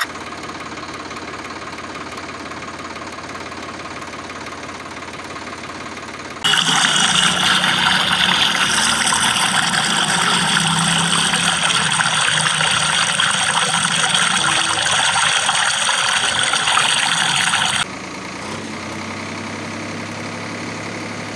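Tractor engine running steadily. It switches abruptly to a louder, harsher stretch about six seconds in and drops back to the quieter running sound near the end.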